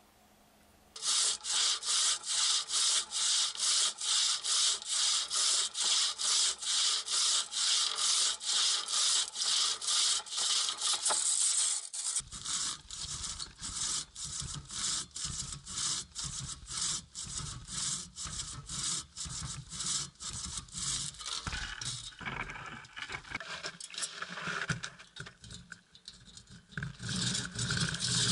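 Hand saw with large teeth cutting through a log, with quick, steady back-and-forth strokes. It starts about a second in and falters briefly near the end before picking up again.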